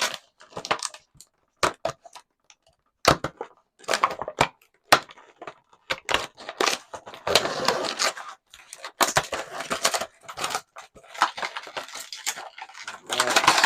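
An action figure's cardboard box and plastic tray are being opened and handled by hand. There are irregular sharp clicks and snaps of plastic and card, between longer bouts of rustling and crinkling.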